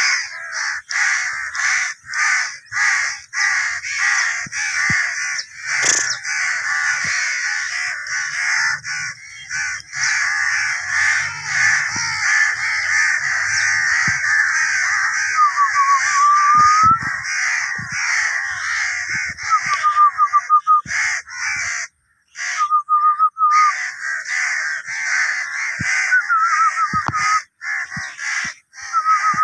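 A large flock of birds calling continuously, many harsh calls overlapping, with short whistled glides now and then; the chorus drops out briefly about twenty-two seconds in.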